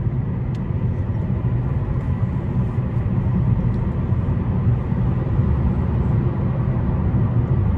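Steady low road and engine rumble of a Ford Focus heard from inside the cabin while driving at speed.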